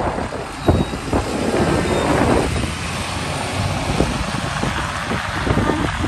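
School bus engine pulling away from the stop, a steady low rumble, with wind gusting on the microphone.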